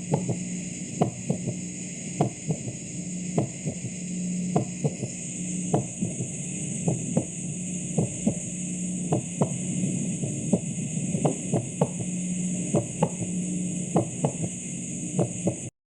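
Heart sounds: lub-dub beats, the short thuds mostly in close pairs a little more than a second apart, over a steady hum and hiss. They cut off abruptly near the end.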